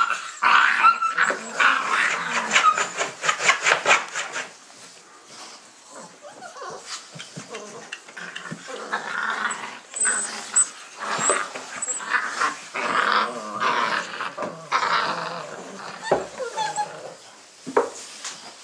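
A litter of Dogo Argentino puppies yelping and whining, with a dense run of quick calls in the first four seconds. After that the calls come scattered, with a few short, very high squeaks around the middle.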